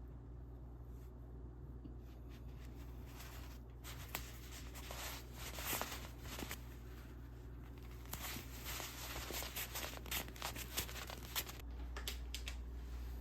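Irregular light clicks and rustling, as of small things being handled, over a steady low hum; the clicking starts about four seconds in and dies away near the end.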